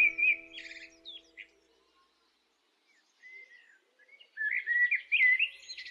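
Bird chirping and twittering in quick, gliding phrases, in two spells a few seconds apart. Soft held music fades out under the first spell.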